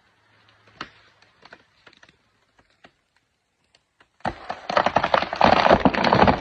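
Scattered faint clicks, then about four seconds in a sudden, loud, dense clatter of rapid knocks.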